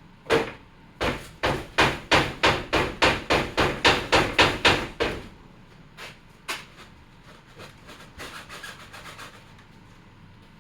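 Hammer striking a brad-nailed wooden box: one blow, then a quick even run of about a dozen blows at roughly three a second, followed by a few lighter knocks and some faint scraping.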